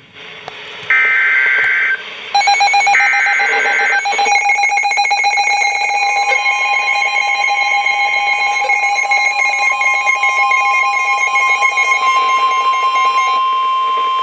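Emergency alert tones from a NOAA Weather Radio broadcast. Two short screeching bursts of SAME header data open it, followed by a pulsing electronic alert alarm. About six seconds in, a single steady warning tone joins the alarm and holds on after the pulsing stops near the end.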